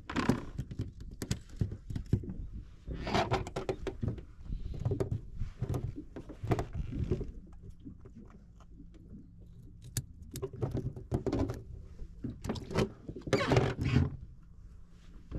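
Handling noise of an angler preparing bait on a boat deck: irregular clicks, knocks and rustles from hands, scissors and tray, in clusters with a quieter stretch about halfway through, over a faint low steady hum.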